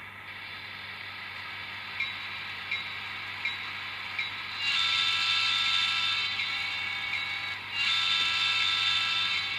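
Onboard sound of an N scale EMD E9 diesel model: the prime mover idling through the model's tiny speaker, with a few light clicks, then two long multi-chime horn blasts, the first about four and a half seconds in and the second just after it ends.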